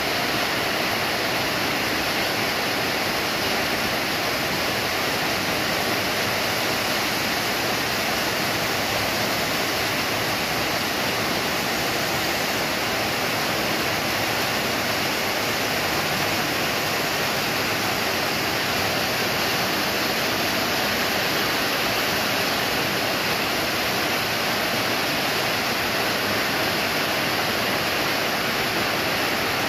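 Rain falling steadily: an even hiss with no breaks or separate louder events.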